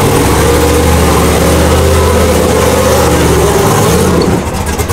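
Race car engine running at a loud, steady idle in a garage, its note shifting and the level dipping briefly near the end.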